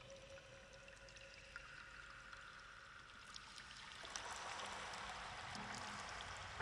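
Ambient music passage of soft pouring and trickling water. A held synth tone fades out at the start, and the water swells louder about four seconds in.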